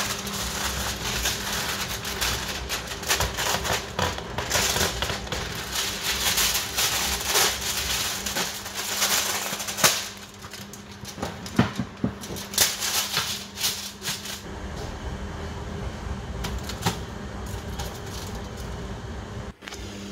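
Heavy-duty aluminium kitchen foil being pulled off its roll, torn and crinkled as it is pressed into a metal baking tray, in dense crackling bursts with a few sharper rips. After about 14 seconds the crinkling dies down and a steady low hum remains.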